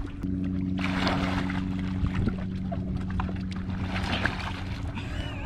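Lake water sloshing and splashing around a swamped sit-in kayak as a man climbs in and sits in it, in short bouts about a second in and again near four seconds, over a steady low hum.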